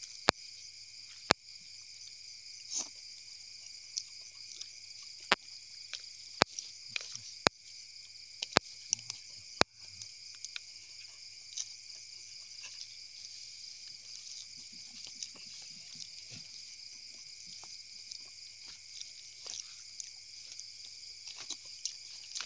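A steady, high-pitched chorus of night insects, crickets among them. Over it come sharp clicks of a metal spoon against a plastic bowl, about one a second in the first half and sparser after that, with faint chewing sounds in between.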